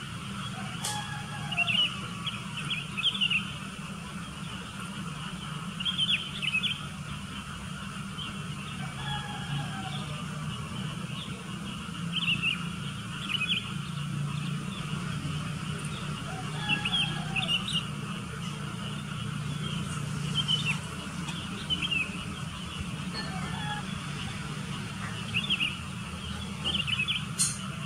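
Sooty-headed bulbuls calling: short, bubbly phrases repeated every couple of seconds, with a lower sliding call now and then, over a steady low hum.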